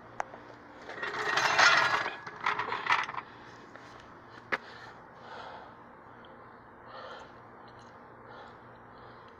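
Car jack being positioned and worked under a truck: a loud scrape about a second in, a run of metal rattles and clanks, then a sharp click, with faint scuffs after.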